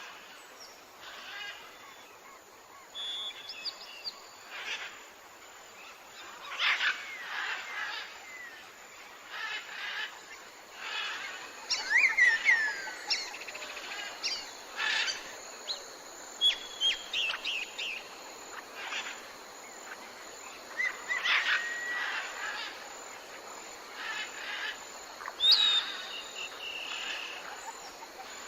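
Tropical forest ambience: many birds calling at once with short whistles and sweeping, downslurred notes, over a steady hiss of insects.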